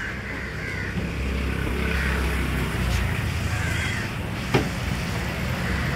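Low, steady rumble of a motor vehicle engine running close by, swelling in the middle, with a sharp knock about four and a half seconds in.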